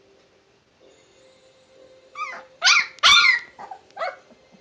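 Husky puppy giving a string of about five short, high yipping cries that fall in pitch, starting about two seconds in, the loudest near the three-second mark.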